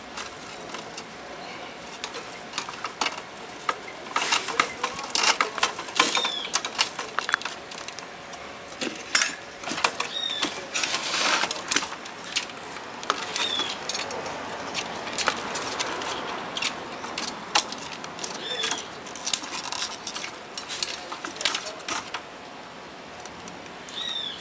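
Clicks, knocks and rattles of hands working inside an opened Yamaha 01V96 digital mixer, handling and untying ribbon cables, connectors and circuit boards against the metal chassis, busiest in the first half. A short high chirp recurs every few seconds.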